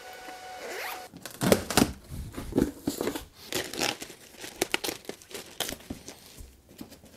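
Clear plastic packing bag rustling and crinkling as it is pulled back by hand from foam packing in a cardboard box, in irregular bursts, the loudest about a second and a half in.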